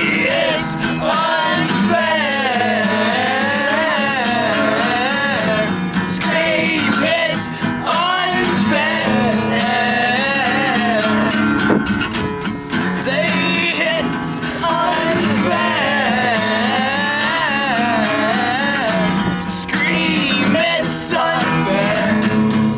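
Acoustic guitar strummed while a voice sings over it: an emo-punk song played acoustically.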